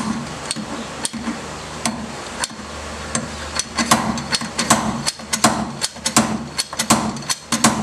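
Slide hammer on a gear puller jerked back again and again, its sliding weight clanking against the stop to pull a MerCruiser gimbal bearing out of its housing. The first few blows are widely spaced, then they come about twice a second. The bearing is stuck and not yet coming free.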